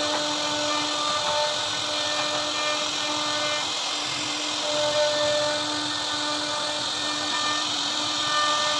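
CNC router spindle running steadily as its carving bit routs a relief pattern into a wooden door panel: a continuous hissing cutting noise with a pitched hum whose tones shift and drop in and out every second or so.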